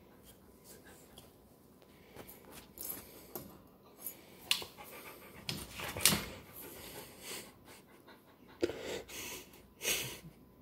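A puppy's noisy breathing and nosing in short, irregular bursts as she plays, with some scuffling; the loudest bursts come about six seconds in and twice near the end.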